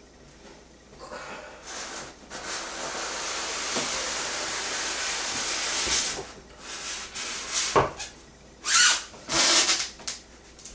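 White inner packing being slid out of a cardboard statue box: a long steady rubbing scrape of packing against cardboard. Near the end comes a knock and a few short, louder scuffs as it comes free.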